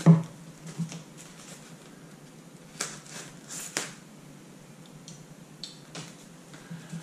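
Handling and opening a small cardboard collectible-figure box and its packaging: scattered light clicks and rustles, with a sharper knock right at the start and a few crisp clicks around the middle.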